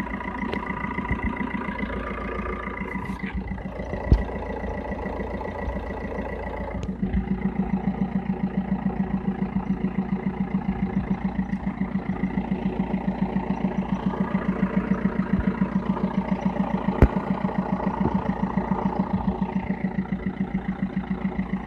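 Diesel car engine running, with a rhythmic pulsing noise that grows louder and more pronounced about seven seconds in, at roughly four to five beats a second. This is the noise that shows up only as the engine speed reaches about 2000 rpm.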